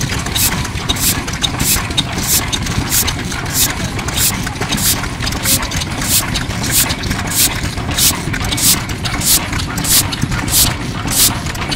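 Yanmar Diesel Type HC 10 hp single-cylinder diesel engine running steadily, its exhaust breathing out through the silencer in an even beat, with a sharp click about three times a second.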